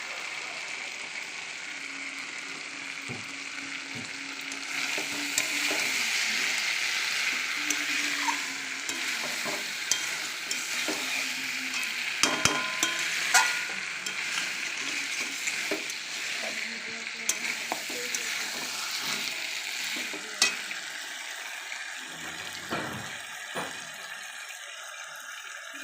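Mutton and potato pieces frying in oil in a pan while being stirred and sautéed: a steady sizzle, with the spatula clinking against the pan now and then, most often around halfway through.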